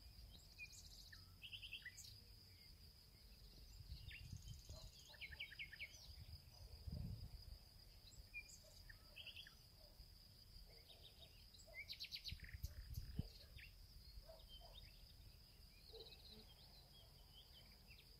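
Faint outdoor background: a steady high-pitched insect drone, with scattered short bird chirps and a few brief low rumbles.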